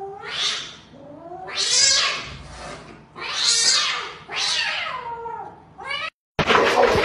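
A cat hissing and yowling in four drawn-out bursts, each with a falling cry through the hiss: a defensive warning. After a brief break near the end, a louder sound of another kind starts.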